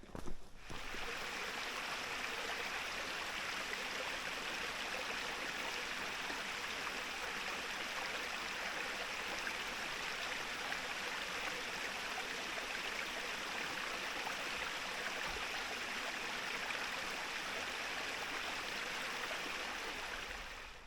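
Stream water running steadily, an even rushing noise that starts abruptly about half a second in and fades out near the end.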